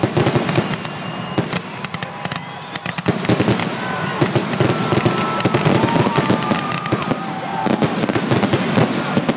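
Aerial fireworks finale barrage: shell bursts and crackle going off in rapid, overlapping succession without a break, with a few high held tones sounding over the din.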